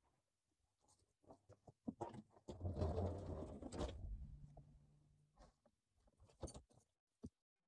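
Rustling and knocking close to the phone's microphone as someone moves and handles things near it, louder for a second or so in the middle, followed by a short low hum.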